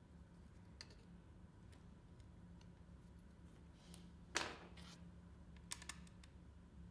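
Near silence with a faint low hum, broken by one sharp click a little past halfway and two lighter clicks about a second later.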